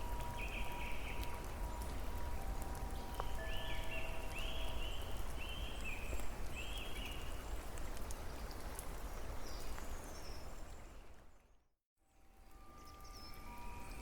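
Steady rain with a bird calling several times in short repeated notes. The sound fades out to silence near the end and quickly fades back up.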